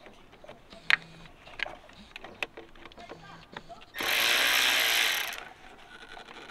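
Small clicks and knocks of a tool working on the intake hose and its clamp, then, about four seconds in, a cordless ratchet runs for about a second and a half, backing off a hose clamp.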